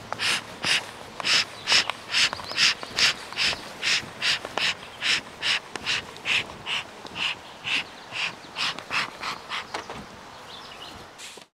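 Footsteps swishing through tall grass at a steady walking pace, about two steps a second. They cut off suddenly near the end.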